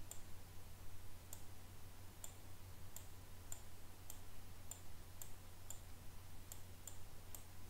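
Faint computer mouse clicks, about two a second at an uneven pace, over a low steady hum.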